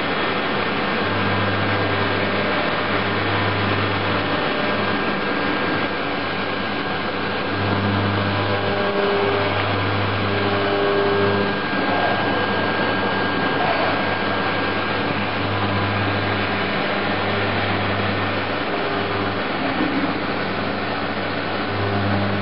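CNC milling machine cutting an aluminium part under flood coolant: a steady hiss of coolant spray over the machine's running noise, with a low drone that switches on and off every second or few.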